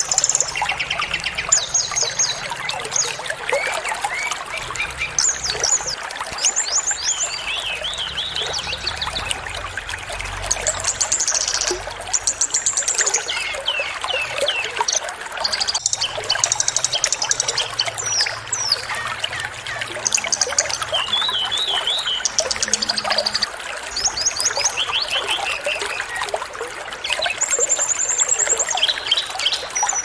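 Songs of assorted small songbirds: rapid chirps, trills and quick up-and-down whistled phrases following one another with short gaps. Under them runs a steady sound of trickling water.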